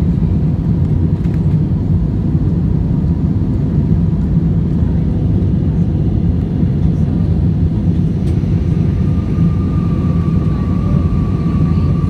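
Airbus A320's jet engines: a steady low rumble, with a faint thin whine joining in about nine seconds in.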